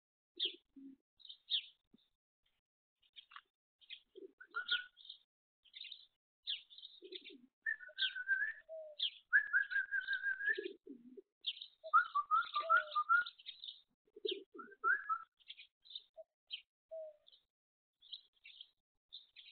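Small birds chirping in short, frequent notes, with longer warbled phrases in the middle, and a few low pigeon coos in between.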